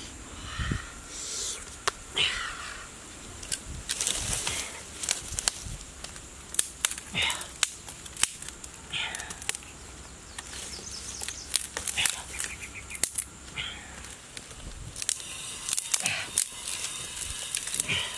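Handling noises: a run of sharp clicks and snaps of twigs and sticks being handled and laid, with short squeaky calls every couple of seconds.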